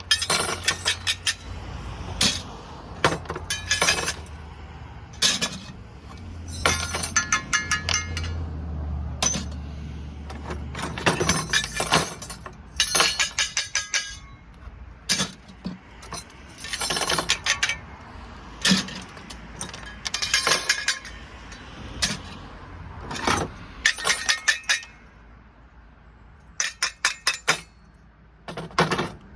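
Small brass and steel light-socket parts clinking and rattling in repeated clusters as they are handled and tossed, a few pieces ringing briefly about seven seconds in. A low steady hum runs under the first third.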